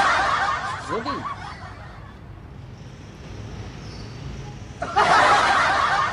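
Laughter in two loud, breathy bursts: one at the start, another from about five seconds in, with a man's short word just under a second in.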